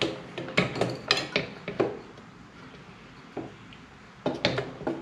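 Metal parts at the hub of a motorcycle's front wheel clinking and clicking as the wheel is fitted back into the fork. There are several sharp clinks in the first two seconds, a short lull, then a few more near the end.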